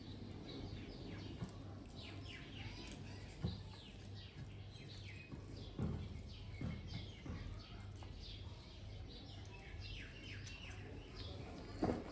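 Small birds chirping, with many short, quick downward-sliding calls throughout. A few low soft thumps sound in between, the loudest near the end.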